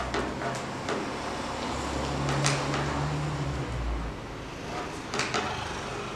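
Thin laser-cut wooden lamp ribs scraping as they are pushed into the notches of a wooden hub ring, with a few sharp clicks as pieces snap fully into place.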